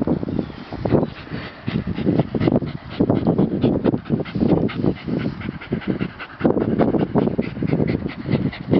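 A dog panting and sniffing hard with its nose down a freshly dug mole hole, a quick run of short breaths.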